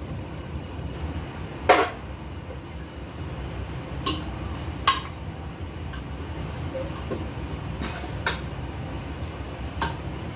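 Kitchenware clinking as soup is put into a ceramic pot: a stainless steel bowl and utensils knocking against the pot in about six short sharp clinks, the loudest about two seconds in, over a steady low hum.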